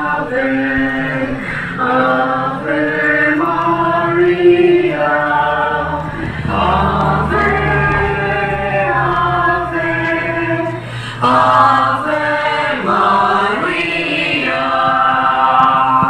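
A group of voices singing a religious hymn in unison, phrase after phrase with short breaks between them.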